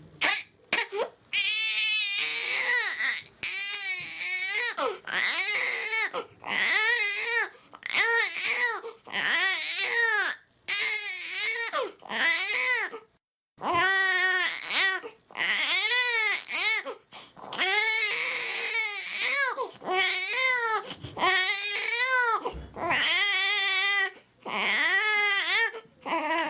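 Infant crying hard: a run of about twenty wailing cries, each about a second long and rising then falling in pitch, broken by quick gasps for breath.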